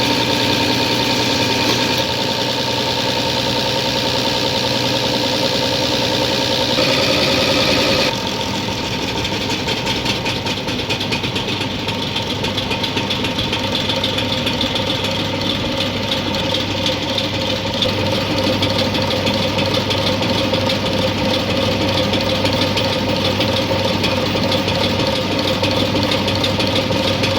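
Diesel engine running steadily at idle. Its sound changes abruptly about eight seconds in and then carries on steadily.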